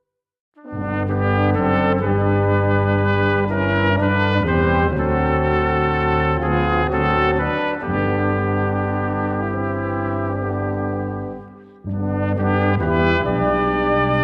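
Brass ensemble of trumpets, trombones, French horn and tuba playing a Congregação Cristã no Brasil hymn in sustained chords over a deep bass line. The playing starts about half a second in, dips briefly partway through, and fades out before a new phrase begins near the end.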